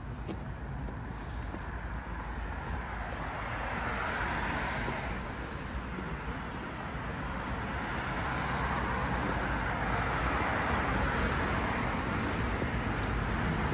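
City street traffic: tyre and engine noise of passing cars, swelling about four seconds in and building again from about eight seconds on, over a steady low rumble.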